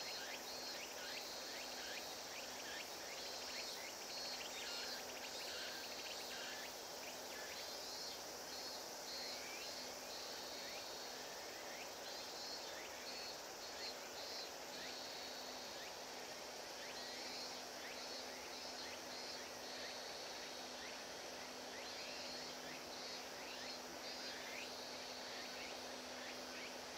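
Outdoor ambience of insects chirping in repeated pulsing bursts, with faint short calls that rise and fall in pitch and a steady low hum underneath.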